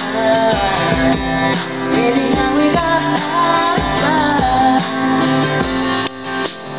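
A woman singing a melody with several acoustic guitars strumming chords behind her, live and unamplified-sounding through a microphone. The voice pauses near the end while the guitars carry on.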